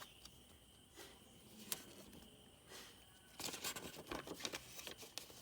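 Faint paper handling: a couple of isolated light clicks, then from about three and a half seconds in a quick run of rustling and crinkling as paper pieces are moved.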